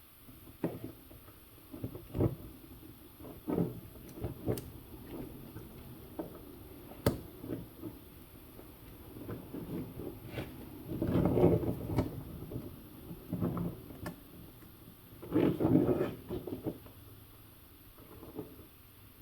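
Scattered clicks, taps and rattles of small track links being handled and fitted together while an RC crawler loader's track is joined. There are two longer, louder spells of handling, one about eleven seconds in and one about fifteen seconds in.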